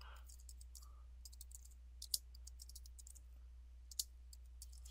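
Computer keyboard being typed on: keystroke clicks in quick, irregular runs, with a couple of sharper clicks about two and four seconds in, over a steady low hum.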